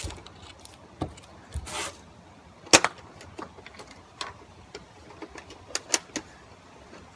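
Plastic clicks and snaps from a Nerf Brainsaw foam-dart blaster being handled and fired, with the sharpest snap about three seconds in.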